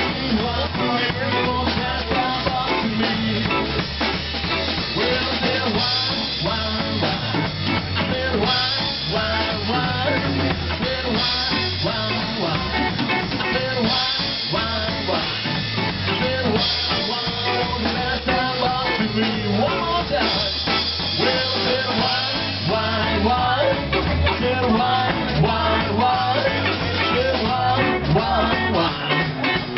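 Live rock and roll band playing an instrumental stretch with guitar and drum kit, at a steady driving beat.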